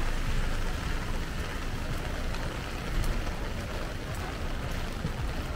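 Heavy rain falling steadily, with scattered sharp ticks of drops striking close by, over a low rumble of street traffic.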